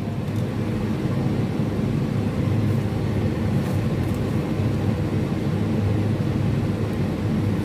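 Steady low mechanical hum and rumble from background machinery, unchanging throughout, with no distinct knocks or clicks.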